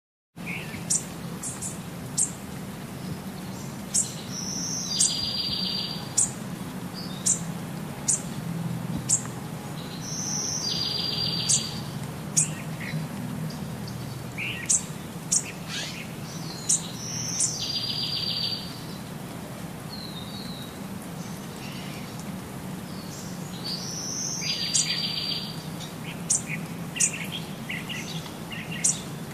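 Small bird singing: sharp high chirps with a short buzzy trill repeated about every six seconds, over a steady low hum.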